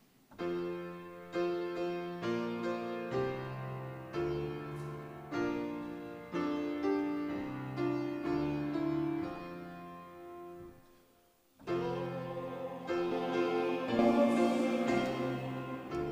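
Piano playing slow chords, each struck and left to fade, with a short break before the playing resumes.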